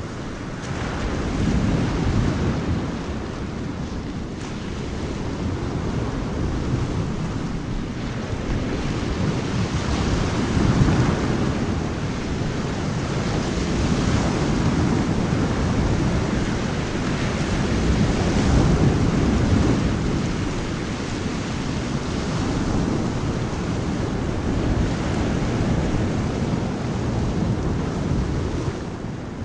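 Rain-and-thunder ambience: a steady rushing hiss over deep rolling rumbles that swell and ease every few seconds.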